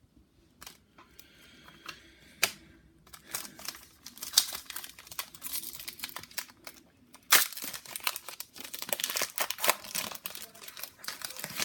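Plastic trading-card pack wrapper being torn open and crinkled. A few light clicks at first, then dense crackling from about three seconds in, with several sharp louder crackles, until near the end.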